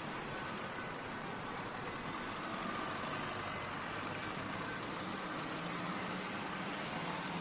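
Steady noise of motorway traffic: cars and trucks passing at speed, an even rush with no distinct events.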